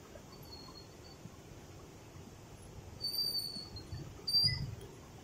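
A bird calling: short, high-pitched whistled notes, a faint one early, a clearer one about three seconds in and a short rising one near the end, over a faint low background rumble.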